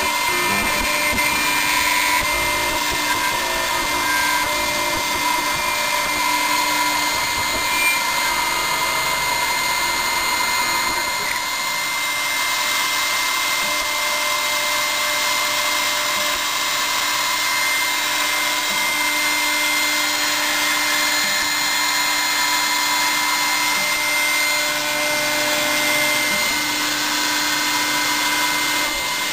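Small CNC milling machine running: a steady high spindle whine with several held tones as a small end mill cuts plastic. A low rumble under it drops away about eleven seconds in.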